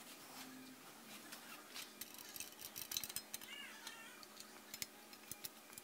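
Faint, scattered metallic clicks and light scrapes of a 4 mm Allen wrench turning M6 button-head bolts tight into radiator brace rods. The clicks are busiest in the middle.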